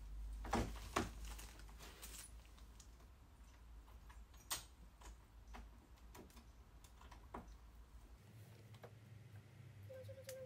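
Faint, scattered light clicks and taps of a metal lock part and a pencil against a door edge as the lock's outline is marked for chiselling, with a sharper click about four and a half seconds in.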